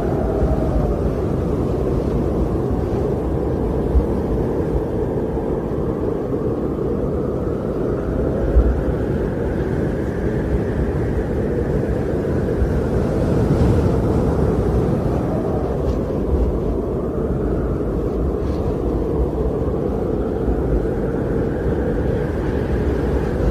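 Strong wind blowing steadily, a deep rushing noise that slowly swells and eases, with a couple of brief low thumps of gusts.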